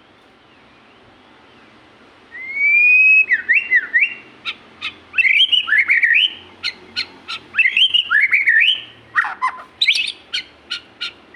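Murai (a Copsychus songbird) in full song: loud whistled phrases that sweep up and down, mixed with short sharp clicking notes, starting about two seconds in.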